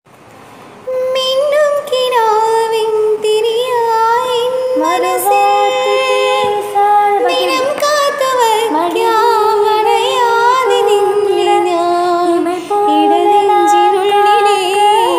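A young woman singing a Malayalam film-style melody solo, holding long notes that waver and bend in ornamented turns; the voice comes in about a second in and carries on without a break.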